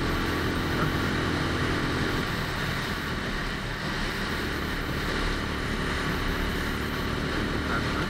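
Lexmoto ZSX-F motorcycle engine running while riding, with wind rushing over the microphone. The engine note eases off about two seconds in and builds again in the second half.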